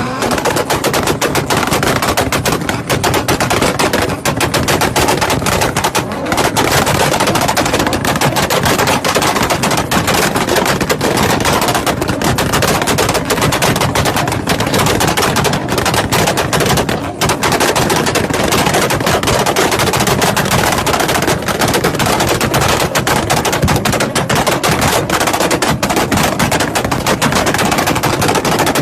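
Car exhaust cracking and popping in a rapid, unbroken string of sharp bangs, like machine-gun fire, with only brief dips around six and seventeen seconds in.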